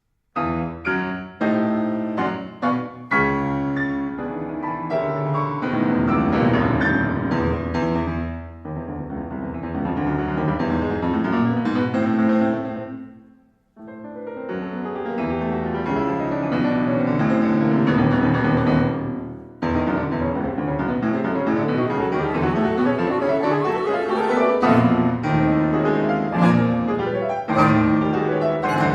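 Piano playing a fast, dense contemporary classical passage: short, sharp chords at first, then continuous rapid figures, breaking off almost to silence about halfway before resuming.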